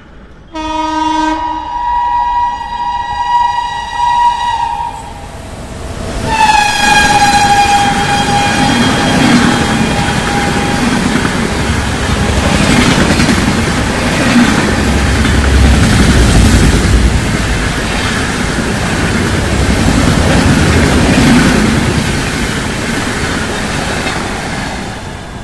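Express train passing at speed through a station. Its locomotive sounds two long horn blasts, the second dropping slightly in pitch as it passes. The LHB coaches then rush by with a loud rumble and rhythmic wheel clatter over the rail joints, fading near the end.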